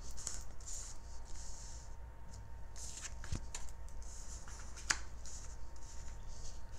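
Tarot cards being handled and slid back into the deck: a soft papery rustle with scattered clicks, a low thump about three and a half seconds in and one sharp snap of a card about five seconds in.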